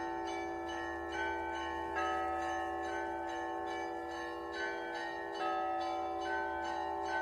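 Church bells ringing: bells struck in turn, a new stroke under a second apart, each tone ringing on beneath the next.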